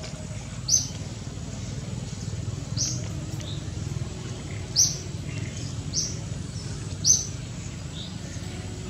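A bird gives a short, high chirp about five times, one to two seconds apart, over a steady low hum.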